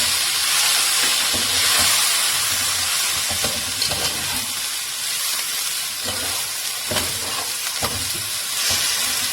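Chopped vegetables and freshly added tomatoes sizzling in hot oil in a pan, with a spatula stirring and knocking against the pan now and then.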